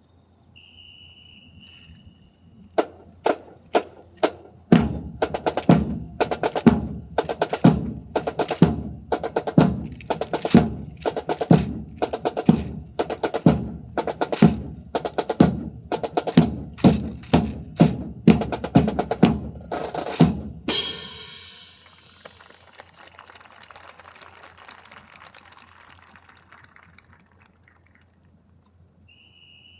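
A short high whistle blast, then a drill team's rhythmic percussion: sharp, evenly timed strikes about twice a second for some fifteen seconds, ending in one loud crash, after which applause fades away.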